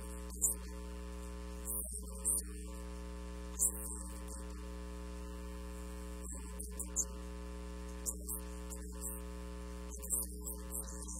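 Steady electrical mains hum with a buzzy stack of overtones, from a faulty audio feed that masks the voice. Brief faint hisses of the preacher's s-sounds break through every second or two.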